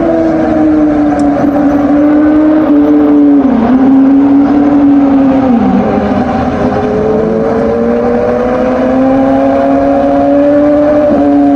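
Kawasaki Z900's inline-four engine running under way at a steady, high pitch. The note dips briefly about three and a half and six seconds in, then climbs slowly over the next several seconds.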